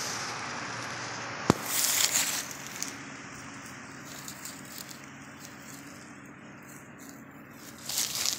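Dry fallen leaves rustling and crunching under a husky puppy's paws as it noses through them, in short bursts about two seconds in and again near the end. A single sharp click, the loudest moment, comes about a second and a half in.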